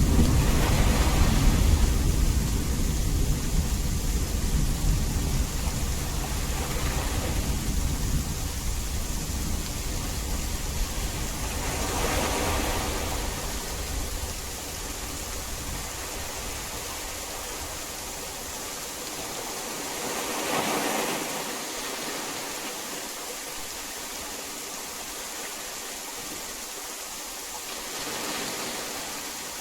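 Heavy rain falling steadily, with a low rumble of thunder that dies away over the first half. The rain swells briefly a few times.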